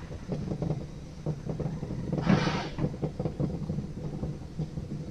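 Bobsled-style coaster sled running down twin steel-tube rails: a steady low rumble with a constant rattling clatter, and a brief louder rush of noise about two seconds in.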